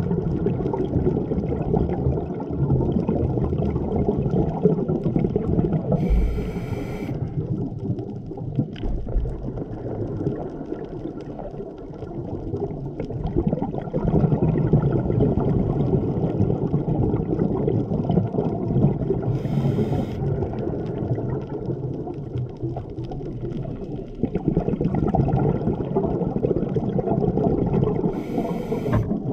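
Scuba regulator breathing heard underwater through the camera's housing: long stretches of bubbling from exhaled air, broken by three short hisses of inhalation.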